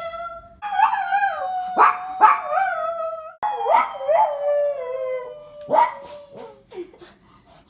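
A dog howling in long, wavering tones that slowly fall in pitch, broken by a few short, sharp yelps, fading out near the end.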